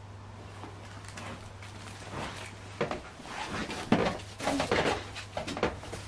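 A person moving about and handling things beside a switched-off vacuum cleaner: irregular knocks, clicks and rustles begin about two seconds in and grow busier and louder, over a steady low hum.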